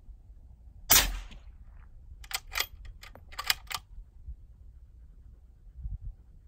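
A single suppressed .308 rifle shot (Hornady 178 grain Match through a Thunder Beast 338 Ultra suppressor) about a second in, with a brief tail. About a second and a half later comes a quick run of five sharp metallic clicks.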